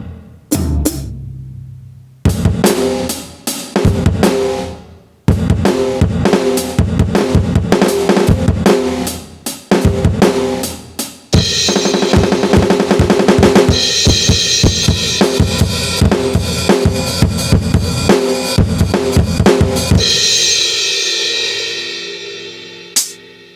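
Aroma TDX-15S electronic drum kit heard through its sound module, playing a beat of kick, snare and hi-hat hits. A fast roll comes about halfway through, and near the end a crash cymbal rings out and fades.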